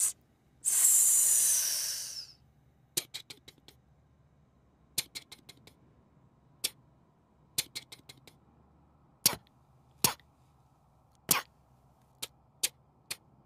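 Cartoon soundtrack: a loud hiss lasting a little under two seconds, starting just under a second in, followed by a scattered series of short, sharp ticks and clicks through the rest, a few at a time.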